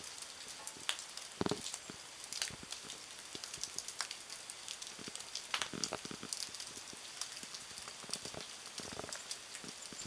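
Sleet falling, a steady hiss with many small irregular ticks as ice pellets land on the snow and nearby surfaces, and a few louder knocks.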